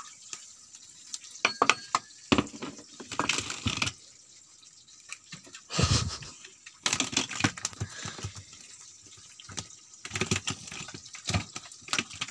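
Irregular wet splashes, taps and knocks as a freshly caught fish is handled over a plastic fish crate, with the loudest thump about six seconds in.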